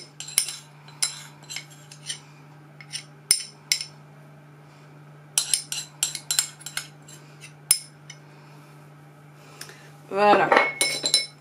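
A metal spoon clinking and scraping against a small glass bowl in quick runs of light clicks, over a low steady hum.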